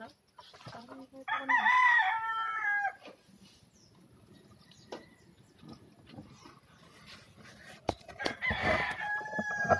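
A rooster crowing twice: a long crow a little over a second in, and a second crow near the end, with a sharp click just before it.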